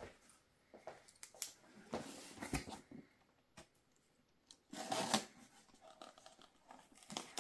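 Small cardboard box being handled and its tape split open with a ballpoint pen tip: scattered scrapes, rustles and clicks, with a louder tearing scrape about five seconds in.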